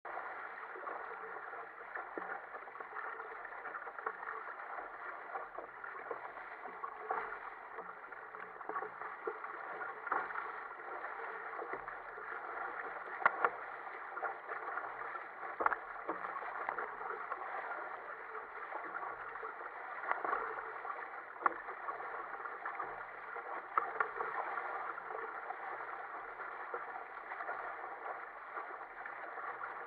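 Water rushing and splashing steadily along the hull of a sail-rigged sit-on-top kayak under way through choppy sea, with a few sharper wave slaps against the hull.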